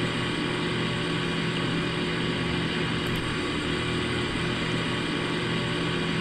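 Payne PH13 heat pump outdoor unit running steadily: a constant machine hum with a few steady low tones under an even rushing noise.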